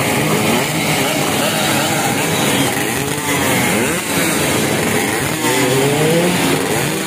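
Several two-stroke racing underbone motorcycles with racing exhausts revving at once, their engine pitch repeatedly rising and falling.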